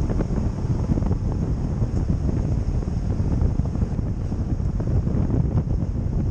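Wind buffeting the microphone: a rough, unsteady low rumble with a faint steady hiss above it.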